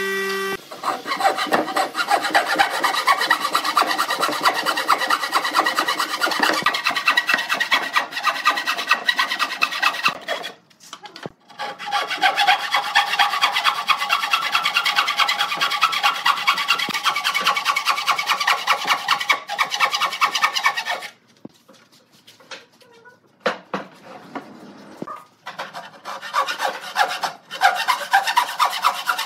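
Hand frame saw cutting across a pine beam in quick, steady back-and-forth strokes. The sawing stops briefly about ten seconds in, then again for a few seconds after about twenty seconds, before starting up again.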